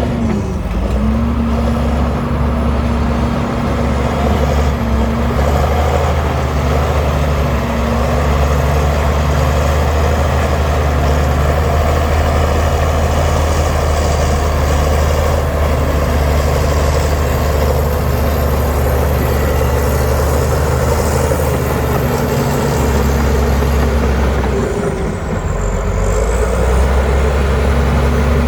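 Diesel engine of heavy earthmoving machinery running steadily, with a brief drop in level about 25 seconds in.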